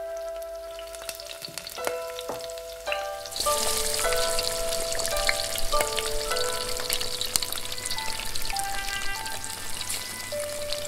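Beef dumplings frying in a hot oiled pan, a loud sizzle and bubbling starting suddenly about three seconds in as the liquid around them boils hard. Light bell-like background music plays throughout.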